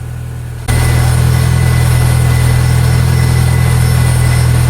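Car engine idling with the metallic 'cling cling cling' rattle of an Ogura Racing performance clutch, the sound this clutch is known for when the clutch pedal is worked. It starts abruptly under a second in and stays steady.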